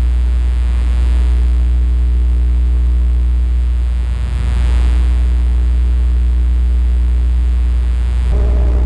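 Loud, steady electrical hum with a ladder of buzzing overtones that never changes pitch: interference in the recording chain, the sign of a failed audio setup.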